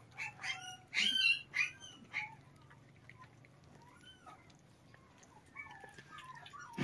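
Kittens mewing: a quick run of short, high-pitched mews in the first two seconds, then quieter mews near the end.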